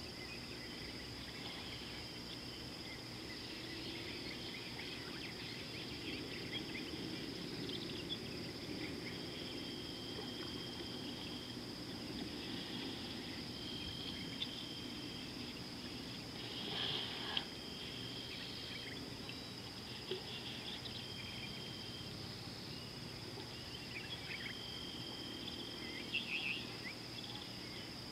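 Bush ambience: a steady high-pitched insect drone, with repeated trills of about a second each and occasional bird chirps.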